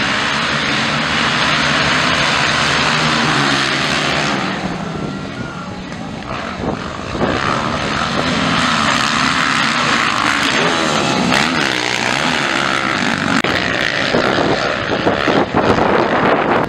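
A pack of motocross bikes racing off the start and around the track, engines revving hard with the pitch rising and falling as riders accelerate and shift.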